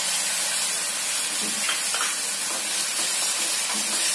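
Wet tomato-and-spinach paste sizzling steadily in hot oil in a nonstick kadai, with a wooden spatula scraping through it now and then.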